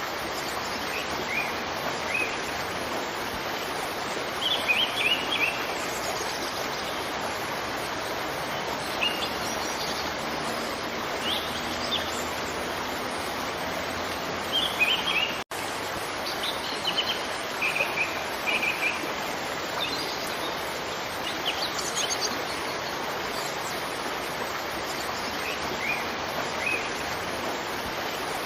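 Steady rush of a waterfall with small birds chirping over it in short runs of a few notes every few seconds. The sound cuts out for an instant about halfway through.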